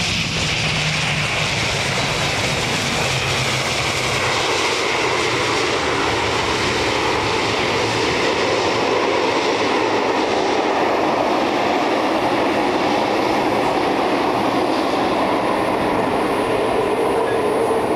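ATR 72-600's twin turboprop engines and propellers giving a loud, steady noise as the airliner rolls out on the runway after touchdown, swelling slightly about four seconds in.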